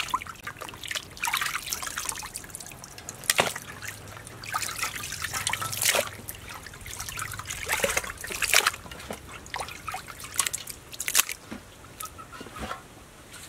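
Water sloshing and dripping as raw pig offal is rinsed by hand in a basin and lifted out dripping into a plastic colander, with irregular splashes, several of them sharper and louder.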